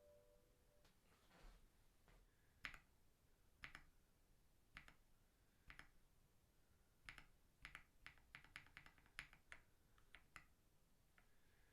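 Zuoya GMK67 mechanical keyboard with Akko V3 Cream Yellow linear switches and a tape mod, keys pressed and released: faint clacks, first single keystrokes about a second apart, then a quicker run of presses.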